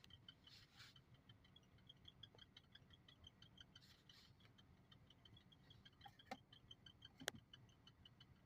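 Near silence with a faint, even, high-pitched ticking, about five ticks a second, and two sharp clicks near the end.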